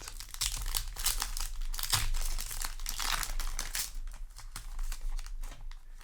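Foil booster pack wrapper crinkling as it is handled and torn open: a dense run of crackles, thickest in the first half, then thinning out.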